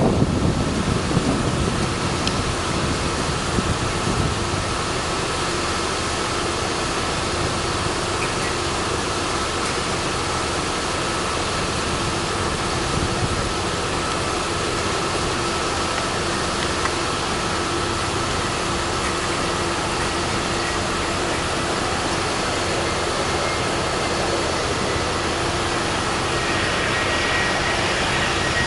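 Airbus A319's CFM56 turbofan engines heard from the ground on final approach: a steady jet hum with a faint whine, which grows louder and brighter near the end as the aircraft nears. Wind buffets the microphone in the first few seconds.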